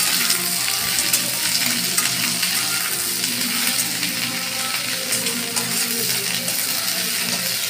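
Chopped okra sizzling in hot mustard oil in a metal kadhai, with a metal spatula stirring and scraping against the pan in scattered clicks.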